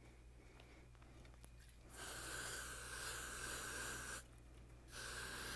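Aerosol spray can spraying in two bursts: a hiss of about two seconds starting two seconds in, then a second burst starting near the end.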